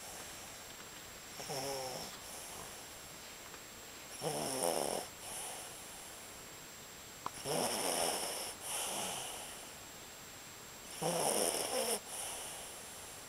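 A sleeping dog snoring: four snores about three seconds apart, each followed by a softer breath.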